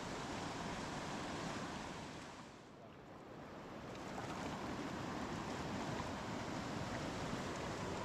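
Steady rushing of a fast-flowing river, which fades down briefly about two and a half seconds in and then comes back up.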